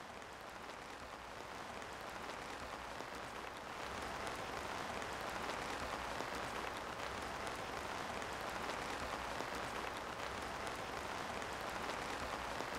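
Steady rain falling, an even hiss with fine scattered patter.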